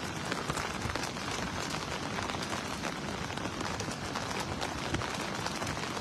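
Steady hiss of rain and water running across wet concrete, with a few faint scattered taps.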